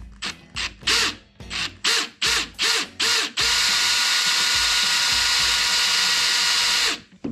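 Makita cordless drill boring a pilot hole through a car's steel door panel: a string of short trigger blips as the bit bites, then a steady run of about three and a half seconds that stops shortly before the end.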